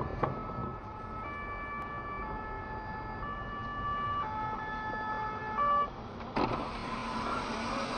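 Fire engine siren sounding two tones that alternate, switching between a higher and a lower note about once a second. It gives way suddenly, about six seconds in, to a steady drone of road and engine noise.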